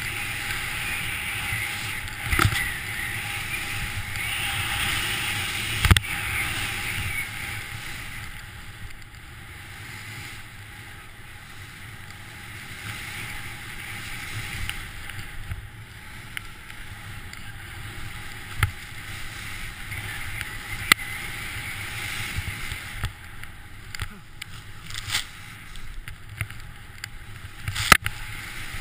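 Steady hiss and swish of skis or a board gliding through deep powder snow, easing off for a stretch about a third of the way in and building again, with a few sharp knocks on the camera along the way.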